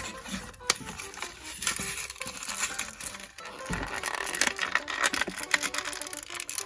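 A toy figure's packaging being handled and pried open by hand, with a dense run of irregular crackles and snaps.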